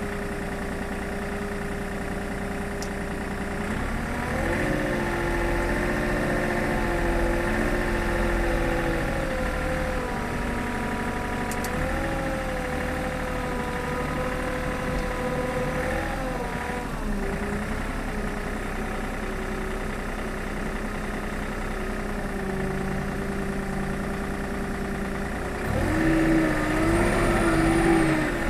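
Komatsu WA40 mini wheel loader's diesel engine running steadily, its pitch rising about four seconds in and holding higher, dropping back at about seventeen seconds, and rising again near the end.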